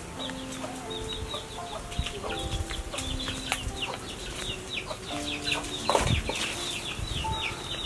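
Chickens peeping and clucking, a quick run of short falling chirps, over soft keyboard music with long held notes. There is a single thump about six seconds in.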